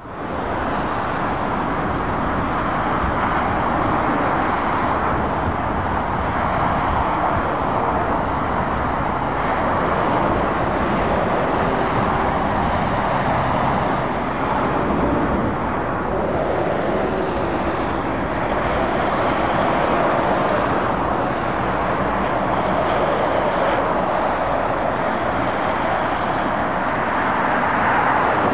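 Road traffic noise from a dual carriageway: lorries and cars passing at speed, a steady rush of tyre and engine noise that gently swells and eases as vehicles go by.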